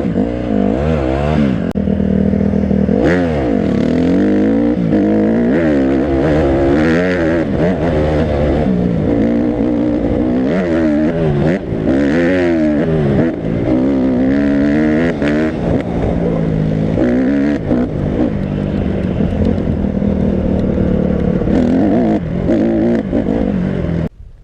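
Off-road vehicle engine being ridden, revving up and dropping back over and over as the throttle is worked and gears change. The sound cuts off abruptly near the end.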